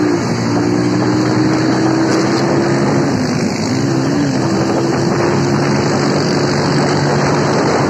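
Motorcycle engine running at road speed under wind and road noise, its note dipping and coming back up near the start and again about four seconds in.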